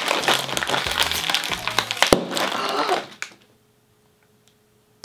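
A chip bag crinkling loudly as it is tugged open, with a sharp pop about two seconds in as it bursts open, over background music. The sound cuts off suddenly a little after three seconds, leaving near silence.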